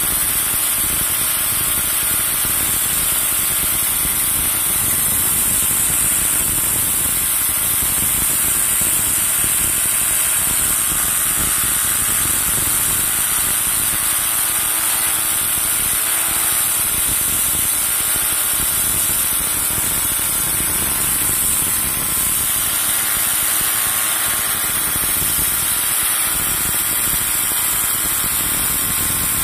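Electric angle grinder with an abrasive disc grinding the surface of a steel pipe: a steady hissing grind over the motor's whine, held at an even pressure.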